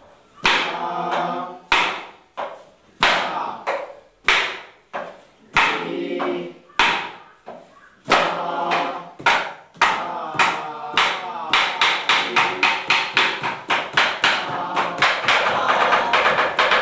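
Rhythm practice for Kathakali dance: sharp percussive strikes keeping the beat, the first ones spaced about a second apart, each followed by chanted rhythm syllables. From about eleven seconds in the strikes come fast and even, about four to five a second.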